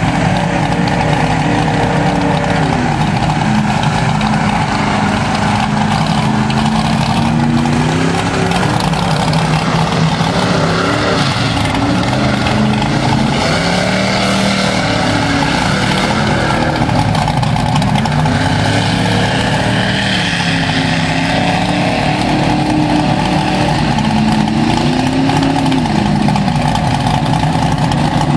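Mud truck engines revving up and down as the trucks power through a mud pit. The pitch rises and falls every few seconds over a constant rushing noise.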